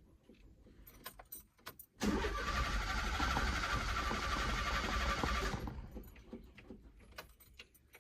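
Fiat 147 being cranked: a few light clicks, then about two seconds in the starter motor turns the engine over steadily for about three and a half seconds and stops without the engine catching.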